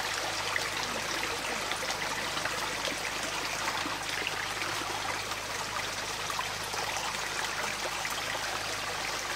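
Shallow stream trickling steadily over rocks.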